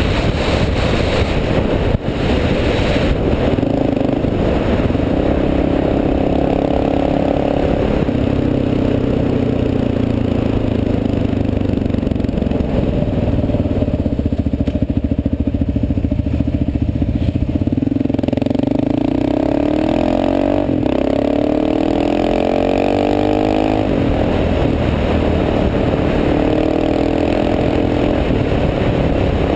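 Motorcycle engine running under way, heard from on the bike. Its pitch shifts with throttle and gear, climbing several times in a row about two-thirds of the way through as the bike accelerates.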